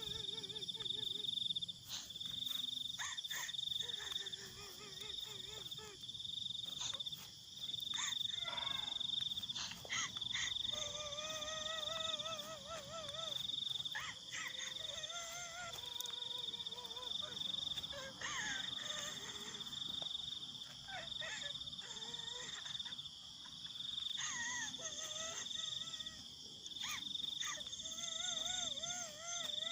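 Night insects chirring in a steady, high-pitched drone, with wavering, wobbly pitched calls rising and falling over it every few seconds.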